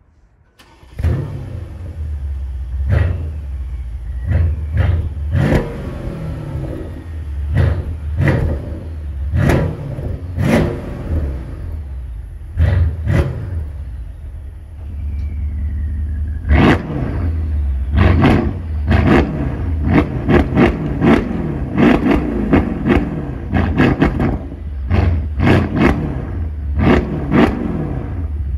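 Mercedes S63 AMG W222's 5.5-litre biturbo V8 starting up about a second in, then idling and blipped in short revs again and again, about two dozen times. It is heard through a Guerrilla bypass exhaust with the bypass valves open and the mid muffler deleted, so the rear mufflers are bypassed.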